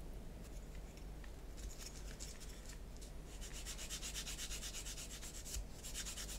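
A sanding stick rubbed in rapid back-and-forth strokes over a plastic model part, making a faint, even scratching. It starts about a second and a half in and pauses briefly near the end.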